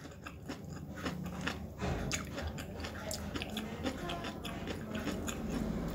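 A man chewing a mouthful of boiled eggplant and rice close to a clip-on microphone: a run of quick, irregular wet clicks and smacks of the mouth.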